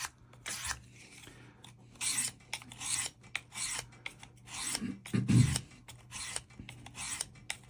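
S90V steel knife blade drawn across the diamond plate of a Work Sharp Field Sharpener in quick strokes, about two a second, each pass a dry rasping scrape. A brief low hum about five seconds in.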